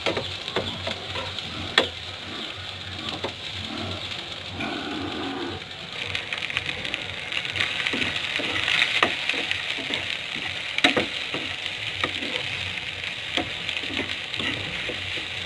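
Salted egg and vegetables sizzling in oil in a pan, stirred with a metal spoon that scrapes and clicks against the pan now and then. The sizzling grows louder about six seconds in.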